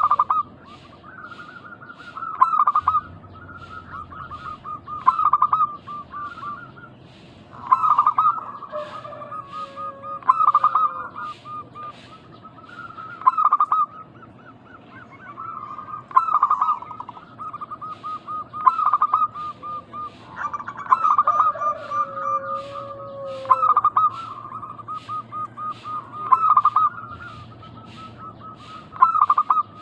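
Zebra doves (perkutut) cooing: rippling phrases of quick staccato coos that return about every two to three seconds, with a lower, drawn-out call twice. Faint rapid high chirping runs behind them.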